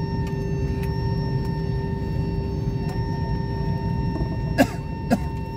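Cabin noise of an Airbus A320-family jet airliner taxiing: a steady low rumble with a constant whine of several steady tones. Two sharp clicks come about four and a half and five seconds in.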